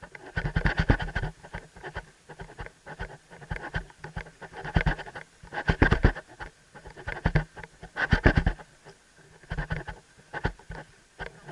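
A camera mounted on a riding helmet rubbing and clicking against the helmet in about eight irregular scratchy bursts. The camera is a bit heavy for the rider's helmet and shifts as she rides.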